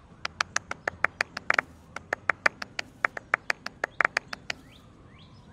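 Sparse clapping from a small group of people, about two dozen uneven claps over four seconds before it dies out.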